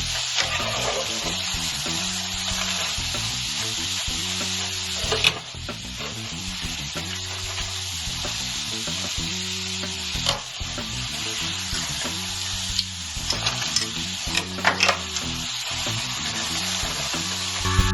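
Puff puff dough balls deep-frying in hot oil, a steady sizzle, with a few sharp knocks spaced several seconds apart. Quiet background music runs underneath.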